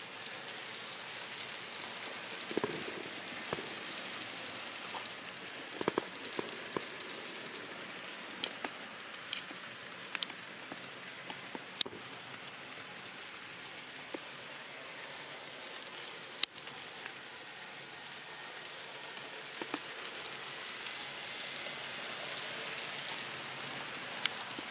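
N-scale Kato SD70MAC model locomotive, freshly cleaned and re-greased, hauling a string of freight cars along the layout's track. Its small wheels make a steady, even rolling rattle, with scattered sharp clicks.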